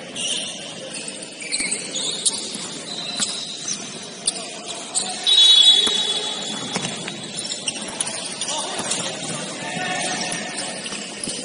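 Basketball game in a gym: sneakers squeaking on the court amid scattered sharp clicks and faint players' voices. A longer, louder high squeak comes about five seconds in.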